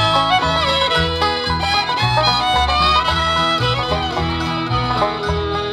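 A bluegrass string band playing an instrumental passage, with banjo, fiddle and guitar over a steady bass beat.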